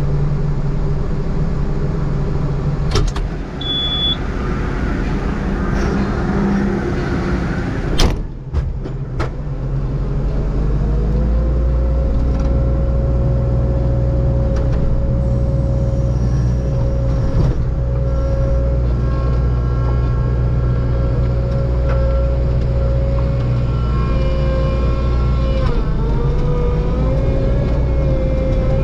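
Forestry mulcher grinding a brush pile: a heavy engine running steadily under load, with two sharp cracks about three and eight seconds in, then a steady whine joining from about ten seconds on.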